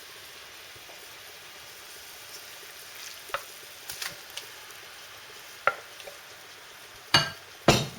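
Grated onion frying in oil in a pan, a steady sizzle, with a few light clicks of a utensil and then louder knocks against the pan near the end.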